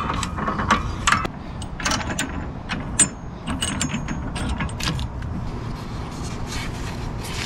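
Blue pipe clamps worked on a glued wooden board: a run of metal clicks and rattles from the clamp jaws and screw handles, then softer handling of the board after about three and a half seconds.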